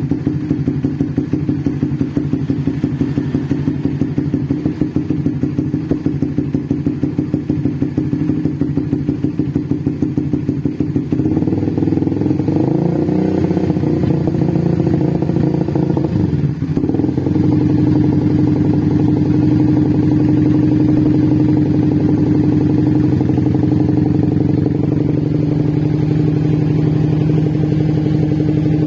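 Bored-out (BRT big-bore kit) Suzuki GSX-R150 single-cylinder engine idling with a lumpy, choppy beat. About 11 seconds in the engine speed shifts, dips briefly, and from about 17 seconds it runs at a steadier, more even idle.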